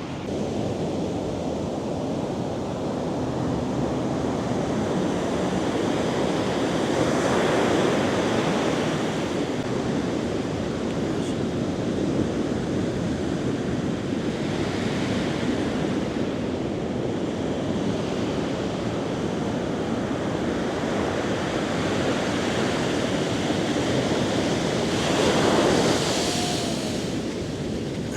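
Big ocean waves breaking and surf washing in, a continuous noisy rush that swells louder about a quarter of the way in and again near the end, with wind buffeting the microphone.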